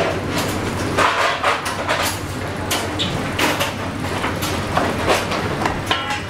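Kitchen clatter of chapatis being rolled by hand: wooden rolling pins and steel plates knocking irregularly, over a steady low rumble, with faint voices now and then.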